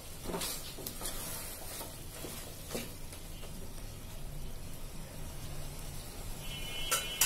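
Wooden spatula stirring and scraping chicken pieces in a metal pot, with a low sizzle as the meat and spices fry down in oil. A few scrapes of the spatula, and a sharp knock near the end.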